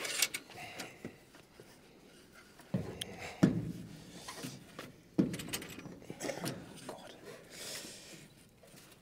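A few dull knocks and thumps on steel roof sheeting as people climb and shift their footing on it, about four knocks in the first half, with quiet rustling between.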